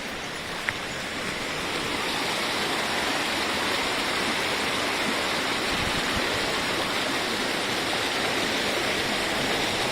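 Steady rush of flowing river water, swelling slightly over the first two seconds and then holding even.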